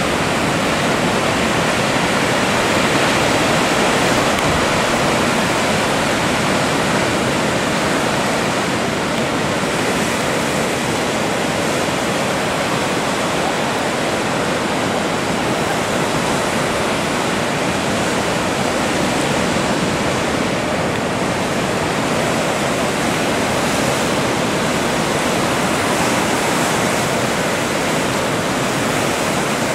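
Ocean surf and churning whitewater: a steady rush of breaking waves.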